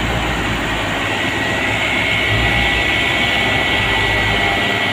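Heavy diesel truck engine running hard under full load, towing a stalled truck up a steep grade. A high steady whine joins the engine noise about two seconds in.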